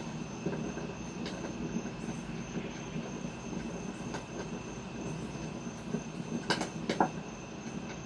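Recorded wood-fire crackling played by a propane gas fire system: a steady rushing noise with scattered sharp pops, the loudest two coming close together late on.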